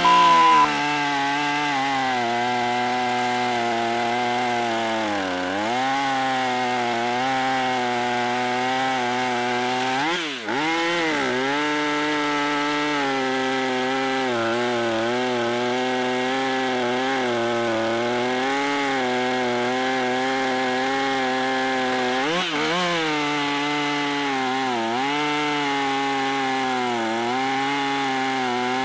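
A short beep at the very start, then a Husqvarna two-stroke gas chainsaw running at full throttle through a dense lodgepole pine log. Its engine pitch sags briefly under load several times, most sharply about ten seconds in, and recovers each time.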